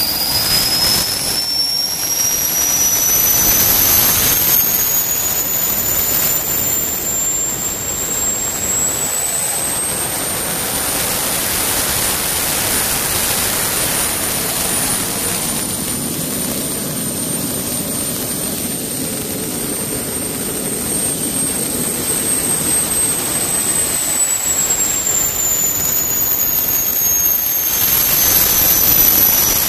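Small 40,000 rpm gas turbine from an airplane's generator running hard, a loud high whine over a steady rushing roar. The whine climbs in pitch over the first ten seconds as the turbine speeds up, holds steady, then drops again near the end as it slows.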